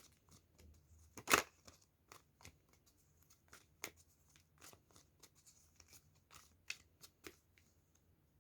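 A deck of tarot cards being shuffled by hand: scattered soft snaps and taps of the cards, the loudest about a second and a half in.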